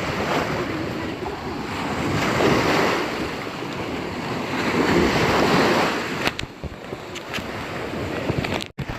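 Sea surf washing onto the shore, swelling and easing, with wind buffeting the microphone. A few sharp clicks come after about six seconds, and the sound cuts out for an instant near the end.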